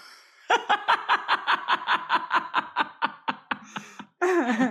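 Women laughing hard: a fast, even run of short breathy "ha-ha" pulses for about three seconds, then a breath and more laughter near the end.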